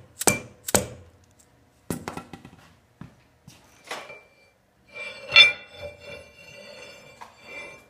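Metal clanking: a few sharp knocks in the first seconds, then a loud clang about five seconds in, followed by a lingering metallic ring and clatter, as of steel tools and parts striking each other.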